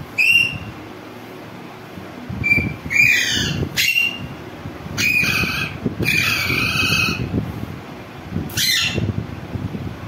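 Caged green parakeet giving harsh, screeching squawks: about six separate calls, several sliding down in pitch, the longest near the two-thirds mark. A low rumbling background noise runs underneath.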